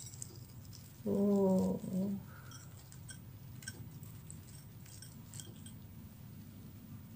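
Hands pulling apart a crisp, breadcrumb-coated fried macaroni-and-cheese ball, giving faint scattered crackles and ticks. A single steady-pitched vocal sound of about a second comes about a second in.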